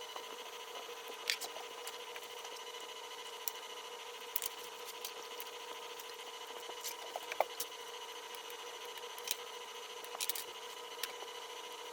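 Sparse, irregular small clicks and taps of computer parts being handled during a PC build, over a steady faint hum.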